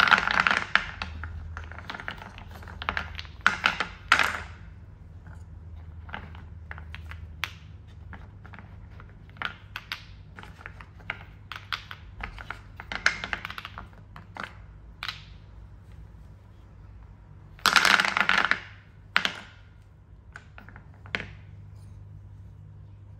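Solid linden-wood balls knocking against each other and dropping into a wooden bowl: a run of sharp wooden clicks, with a few longer clatters where several balls tumble in together.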